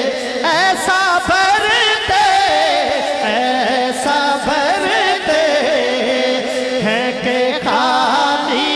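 A man singing a naat into a microphone through a sound system, holding long, wavering, ornamented notes.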